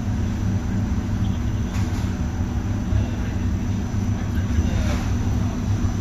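Gasifier furnace and rotary drum dryer plant running, giving a steady low machinery rumble with a faint, steady high whine above it.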